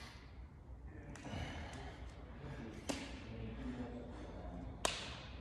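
A man breathing hard from exertion in a gym, with two sharp impacts about two seconds apart, the second one the loudest, near the end.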